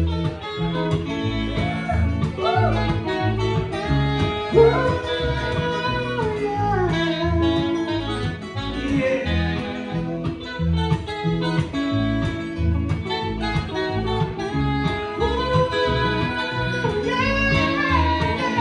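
Live band playing a song: guitars over a steady bass and drum beat, with a lead melody line gliding above them.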